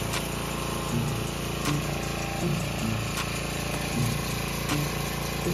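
Power washer running steadily, its motor droning under the even rush of the high-pressure water jet hitting a dirt bike.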